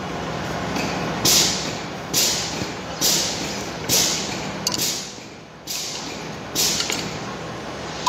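Repeated hand blows on a rusty steel concrete-pump part, seven strikes about a second apart, each a sharp hit that dies away quickly.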